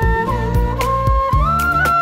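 Instrumental break of a Sinhala pop song: a flute melody with pitch bends over a steady drum beat, about two beats a second, and bass.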